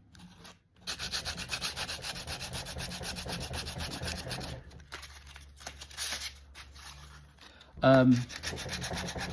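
Hand sanding with 120-grit sandpaper on a block over a hardened epoxy filler patch on cast concrete: quick back-and-forth scratchy strokes that ease off midway and pick up again near the end. A brief vocal sound is heard near the end.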